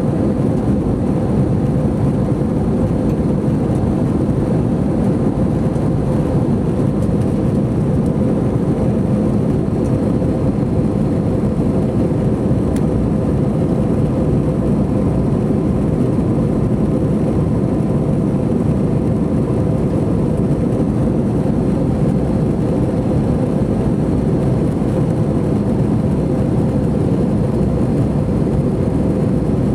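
Airbus A321 cabin in flight: a steady, loud drone of jet engines and rushing air that does not change.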